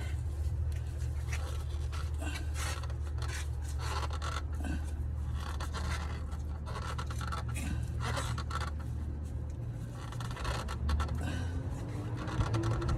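Irregular scraping and rubbing handling noises over a steady low hum.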